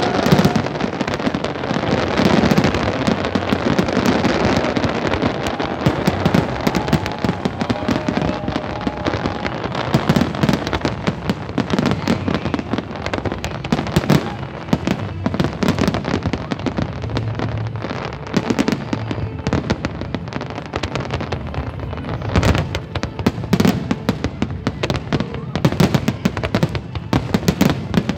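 Large fireworks display: a dense, unbroken barrage of crackling and popping from bursting shells, mixed with heavier bangs. Toward the end the reports come more distinctly, as separate sharp bangs.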